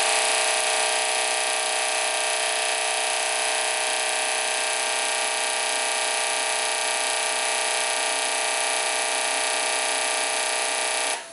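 Four 1200 cc low-impedance fuel injectors on a flow bench firing in rapid succession at an 8 ms pulse width during a flow test: a steady, rapid mechanical buzz of the injector solenoids with fuel hissing into the glass measuring cylinders. It starts abruptly and cuts off sharply shortly before the end.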